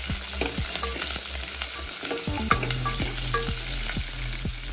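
Shallots and garlic cloves sizzling in hot oil with tempered mustard and cumin seeds in an aluminium pot, with frequent sharp crackles and pops. A ladle stirs them in the pot.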